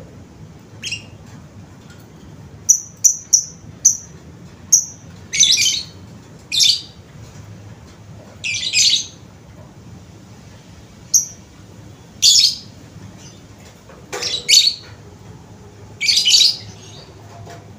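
A bird calling in short, high chirps: a quick run of thin pips, then harsher, longer squawk-like calls at irregular intervals.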